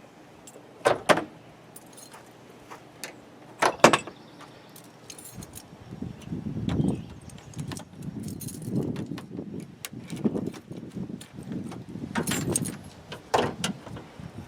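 Jeep Wrangler JK's hood being unlatched and opened: two sharp metallic clacks about a second apart, then a long run of knocking, rustling and clinking as things are handled and moved around the engine bay.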